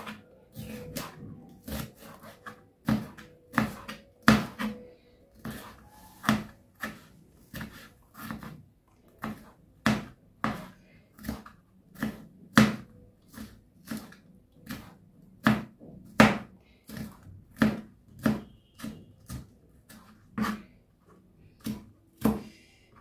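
Kitchen knife chopping green pepper on a plastic cutting board: a steady run of sharp knocks of the blade on the board, about two a second.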